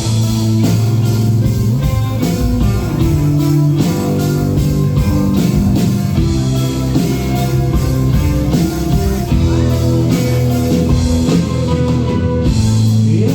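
Rock band playing an instrumental break between sung lines of the song, with guitar and drums.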